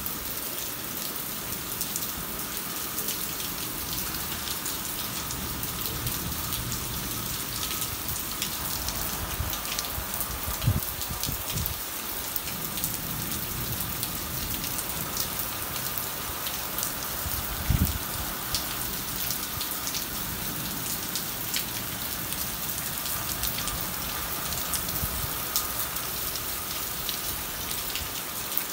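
Steady rain falling, with many sharp ticks of drops hitting nearby surfaces. A brief low thump comes about eleven seconds in and another near eighteen seconds.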